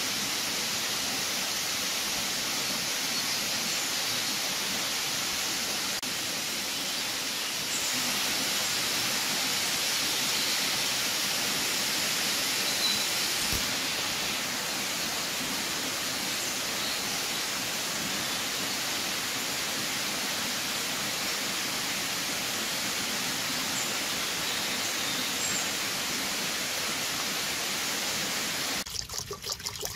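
Steady rushing of flowing water, an even hiss with no rhythm. A single small knock about halfway through, and an uneven, choppier sound takes over in the last second.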